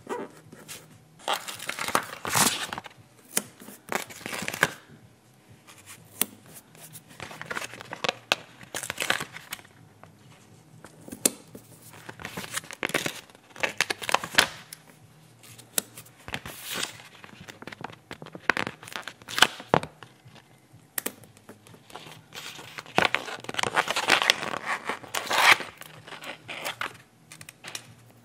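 Paper sticker sheets being handled: stickers peeled off their backing and pressed down onto notebook paper, with paper rustling and crinkling in irregular bursts.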